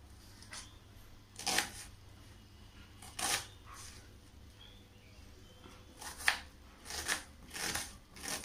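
Kitchen knife chopping an onion on a plastic cutting board: separate knocks of the blade on the board, a couple of seconds apart at first, then coming faster, about one every two-thirds of a second, near the end.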